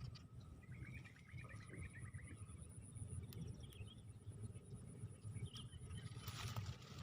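Faint open-air ambience: a steady low rumble of wind on the microphone, with a rapid chirping trill of about a second and a half near the start and faint steady insect-like tones.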